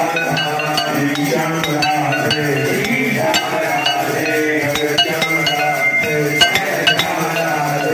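Devotional music with steady held tones and frequent sharp metallic clinks.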